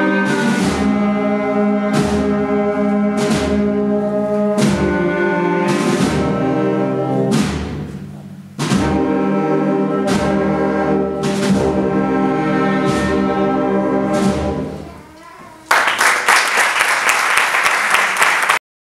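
Concert wind band playing the closing bars of a march: held brass and woodwind chords with regular drum strokes, a brief break about eight seconds in, then a final chord that dies away. Near the end the audience applauds for about three seconds, and the applause cuts off suddenly.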